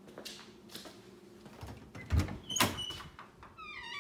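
Interior door being opened: two knocks about two seconds in, then a brief squeaky creak near the end.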